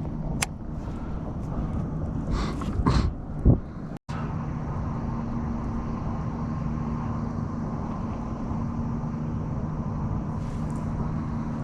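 Steady low mechanical hum, like a motor running, with a few brief knocks in the first few seconds and a sudden break about four seconds in.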